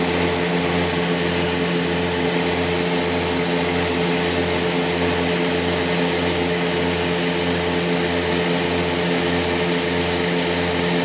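Cabin noise of a Beechcraft Duchess light twin climbing at power: its two four-cylinder Lycoming piston engines and propellers drone steadily. A slow wah-wah beat of about one and a half pulses a second runs through the drone, the beat of two propellers turning at slightly different speeds.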